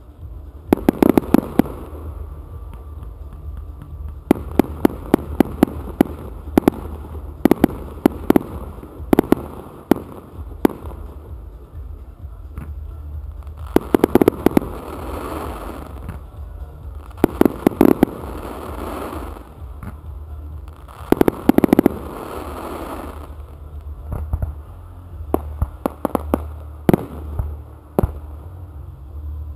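Aerial firework shells launching and bursting in quick volleys of sharp bangs, a cluster every second or two. About halfway through, three longer bursts of dense crackling stars.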